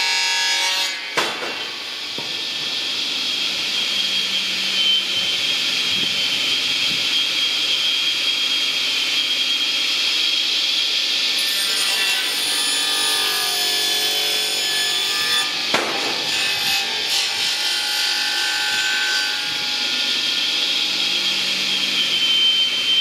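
Circular saw blade of a homemade firewood-cutting machine sawing through logs, a continuous rasping cut over a steady high whine. Two sharp knocks, one about a second in and one about three-quarters of the way through.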